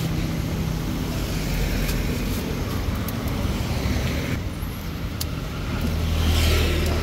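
Road traffic rumbling steadily, with a vehicle passing close by about six seconds in.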